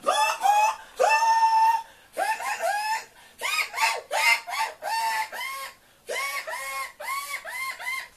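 Vocal sound effects made by mouth: a run of short, high-pitched arching notes in quick groups with brief gaps, one longer held note about a second in.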